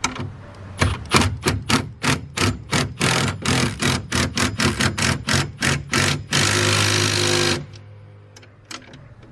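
Milwaukee Fuel cordless impact driver tightening nuts on a bolted steel bracket: the driver hammers in short rapid bursts, about four a second, then runs on steadily for about a second near the end as the nut draws down tight.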